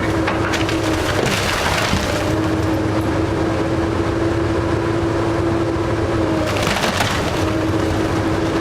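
Wooden house being torn down: timber splintering and cracking in bursts, about a second in and again near the end. Under it a heavy machine's engine runs steadily with a constant whine.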